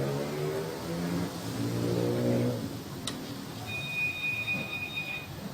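Electrolux top-loading washing machine's drive humming steadily in two short runs during a test of the spin clutch actuator. Then there is a sharp click, followed by a steady high-pitched beep lasting about a second and a half.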